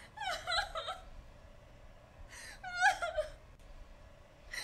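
A woman crying in distress: gasping breaths and short, high-pitched whimpering sobs, in two bouts about two seconds apart.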